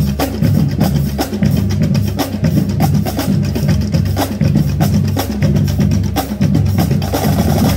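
A marching drum line playing a fast cadence on snare drums, tenor drums and bass drums, with dense rapid strokes and a deep bass-drum beat underneath. The playing stops at the very end.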